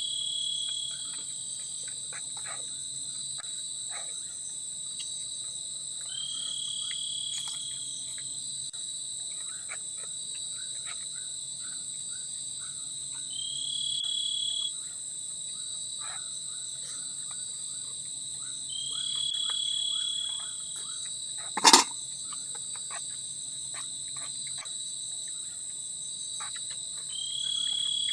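Forest insects singing in a steady, high-pitched chorus. A louder call of about a second and a half repeats five times, roughly every six or seven seconds. A single sharp knock sounds about three-quarters of the way through.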